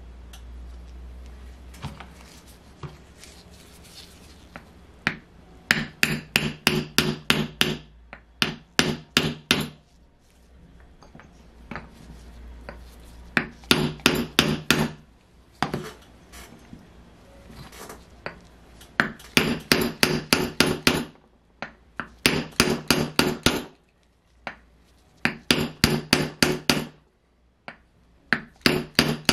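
Light hammer taps on a hardwood block, in quick runs of about five taps a second lasting one to two seconds, with pauses between. They are driving a ball bearing, fitted on the crankshaft, into a heated aluminium Saito FA-100 crankcase.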